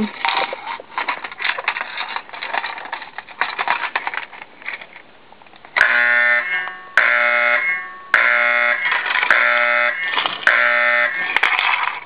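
Keys and the mechanism of a Simplex T-bar glass-break pull station rattling and clicking as it is operated. Then, about halfway through, a relay-switched Faraday fire alarm horn comes on with a loud buzz, sounding in repeated blasts about a second long with brief breaks between them.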